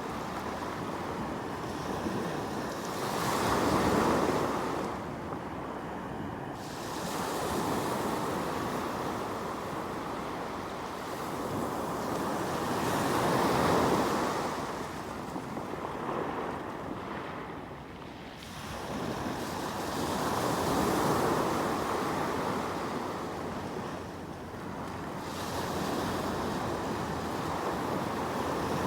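Sea waves breaking and washing on the shore of Suruga Bay, with a steady wash between them. Each wave swells up and dies away, roughly every seven to nine seconds.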